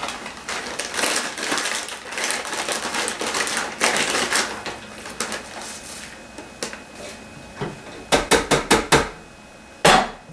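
A plastic bag of shredded coconut crinkling and rustling as it is handled and scooped from with a plastic measuring cup. Near the end comes a quick run of about eight knocks, then one sharp clack.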